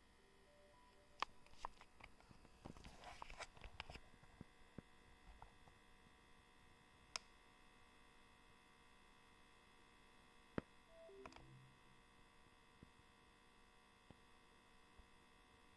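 Oculus Quest 2 headset's cooling fan running faintly with a steady whine of several tones over a low hum, a noise the owner regards as a fault. Scattered clicks and knocks of handling come through, mostly in the first few seconds.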